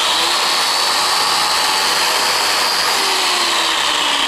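Angle grinder running steadily at full speed, pressed against a log wall to strip off the bark. Its high whine sags a little in pitch later on as it bites into the wood.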